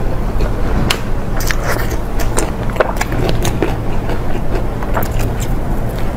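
Close-miked eating: irregular wet mouth clicks and smacks of chewing, over a steady low rumble.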